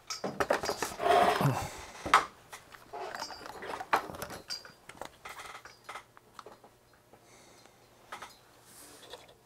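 Handling noise from a video camera being moved and reframed: a dense run of knocks, clicks and rubbing, with the loudest knock about two seconds in. It thins out to a few faint clicks after about five seconds.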